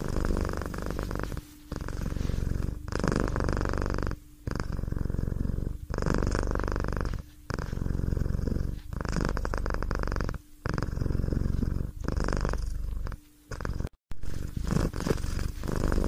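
A cat purring in a steady rhythm, in runs of about a second and a half broken by brief pauses as it breathes.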